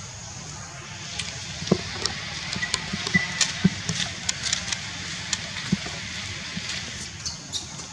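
Scattered sharp snaps and clicks of twigs and leaves as monkeys shift and climb on a tree branch, some with a low thud, over a steady background hiss.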